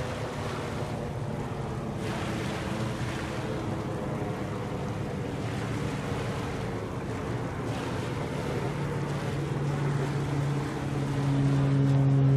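Wind buffeting the microphone over a wash of water, in gusty surges. Under it runs a steady low engine hum, which swells much louder over the last couple of seconds.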